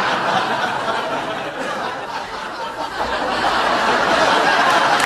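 Studio audience laughing continuously, a large crowd's laughter that eases a little in the middle and swells again toward the end.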